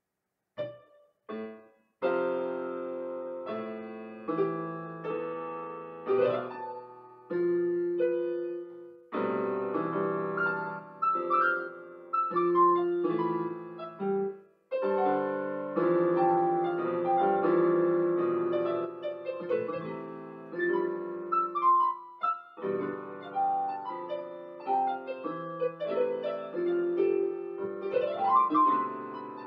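Portable electronic keyboard playing a piano sound: a solo piece of chords under a melody with held notes. It opens with a few short, separate notes, then the playing runs on continuously from about two seconds in.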